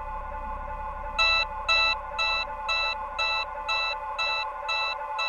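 Alarm clock beeping about twice a second, starting about a second in, the first two beeps the loudest. Under it, a steady synth pad holds sustained chords.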